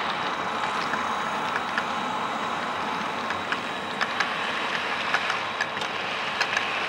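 Model freight train rolling past: a steady whirring hum with irregular sharp clicks of the wheels over the rail joints, the clicks coming thicker from about four seconds in as the locomotives and cars pass close by.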